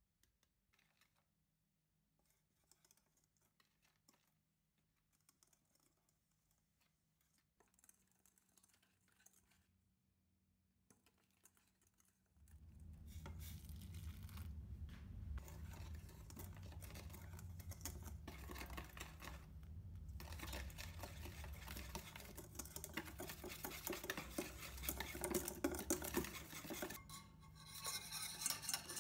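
Wire whisk stirring and scraping in a stainless steel bowl as egg yolks, sugar, cornstarch and milk are beaten together for pastry cream. Only faint scraping at first, then much louder fast whisking from about halfway, over a low steady hum.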